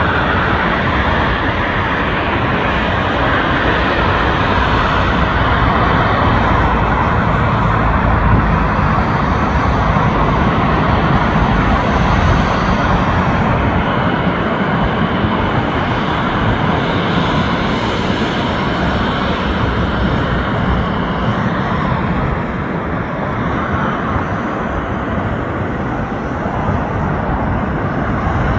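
Embraer E190 airliner's two General Electric CF34-10E turbofan engines running steadily at taxi power as the jet rolls along the taxiway.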